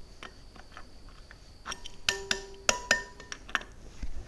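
Metal tool striking the wire spokes of a Sur Ron electric dirt bike's wheel: light ticks, then about half a dozen sharp strikes in the second half. A couple ring on with a clear pitch, while the others sound short and dead, the sign of loose spokes.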